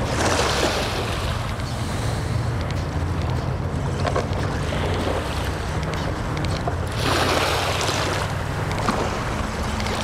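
Sea waves breaking and washing up on the shore, two swells about seven seconds apart, over a steady low rumble of wind on the microphone.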